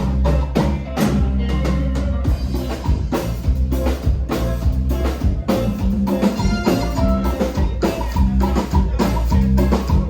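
Live band playing a cumbia medley: drum kit and percussion hits over a steady bass line.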